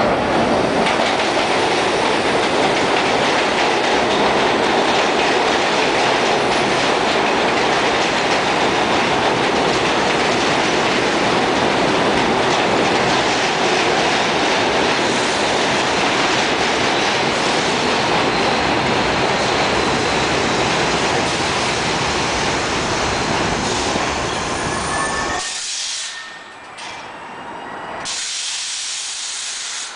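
R44 subway train running into the station: a loud, steady rush of wheel and rail noise as the cars pass, with thin squeals as it slows. About 25 seconds in it comes to a stop and the noise drops sharply.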